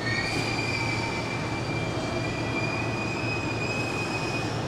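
A Hanshin Railway train's steel wheels squealing on the rails: one high, nearly steady squeal that cuts off near the end.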